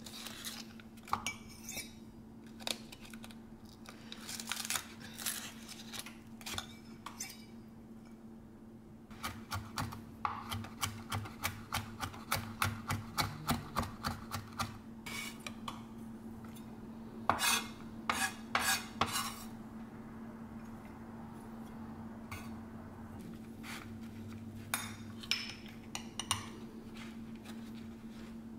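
Chef's knife mincing garlic on a wooden cutting board: runs of quick, even chopping taps, several a second, in the middle. Before and after come scattered single knife and utensil clicks against the board and a ceramic ramekin, over a steady low hum.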